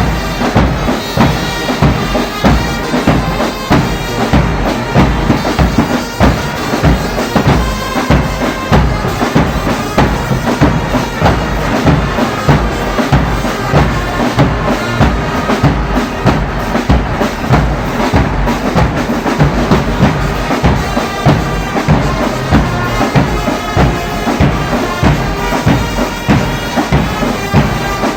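Church brass band playing with drums: wind instruments sounding a continuous tune over a steady, regular drum beat.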